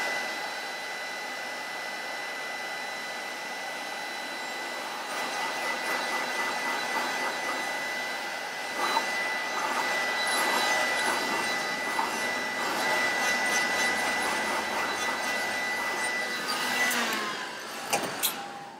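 Steinel hot-air gun running steadily, its fan blowing with a thin steady whine as it warms a car emblem to soften the adhesive tape behind it. Near the end it is switched off and the whine falls away, followed by a few clicks.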